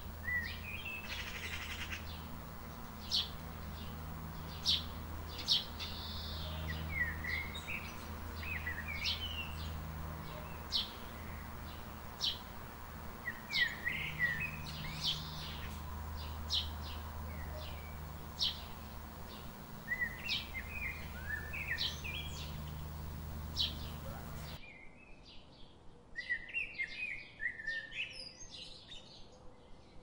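Small birds chirping and warbling: short, sharp high notes and quick twittering phrases repeating throughout, over a steady low rumble. About 25 seconds in, the rumble cuts out abruptly and the audio changes to quieter, thinner chirping.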